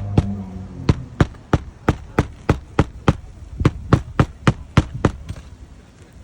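A hammer striking in a steady rhythm, about fourteen sharp blows at roughly three a second, stopping a little before the end; a low hum fades out at the start.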